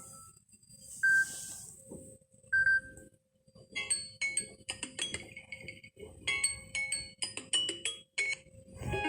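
Samsung Galaxy stock ringtone: a couple of isolated bell-like notes, then from about four seconds in a quick melody of bright chiming, marimba-like notes.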